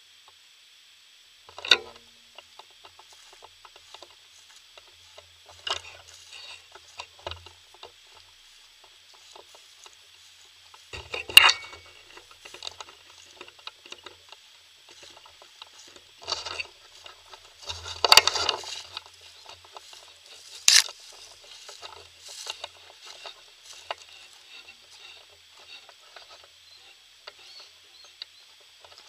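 Footsteps crunching through dry grass and cracked mud, with rubbing and knocks from handling the bow the camera is mounted on: scattered crackles and a few sharp knocks, the loudest about eleven and eighteen seconds in, over a faint steady high hiss.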